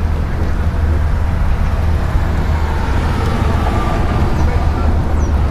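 Strong wind buffeting the microphone, a steady low rumble, from gusty winds ahead of a severe thunderstorm line.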